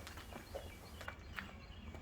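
Faint outdoor background: a low steady hum with a few short, scattered bird chirps.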